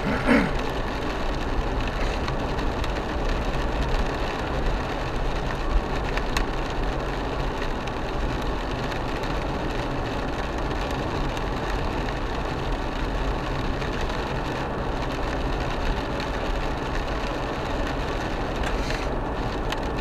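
Steady in-cabin road noise of an Isuzu MU-X driving on a wet road in rain: tyre hiss on the wet surface over the engine's hum, with a short sharp tick about six seconds in.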